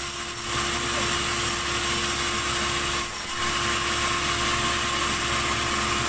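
Sawmill band saw running steadily, a constant hum with a high whine, dipping briefly near the start and again about three seconds in.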